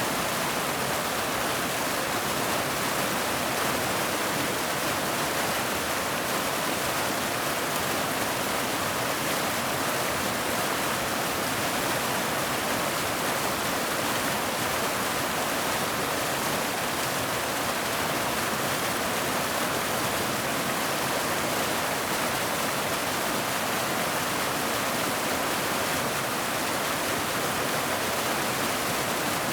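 Waterfall: water falling steadily in an even, unbroken rush of noise.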